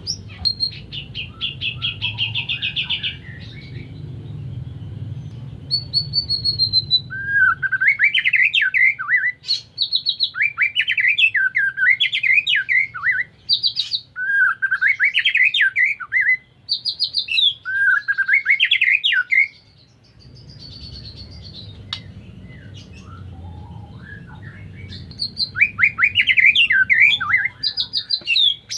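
White-rumped shama singing: a fast trill at the start, then a long run of loud, varied whistled phrases that sweep down and up, with short gaps between them, and more phrases near the end.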